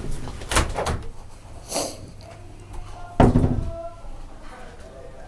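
A door being opened and shut: a few light clicks and knocks, then a heavy thump as it closes about three seconds in.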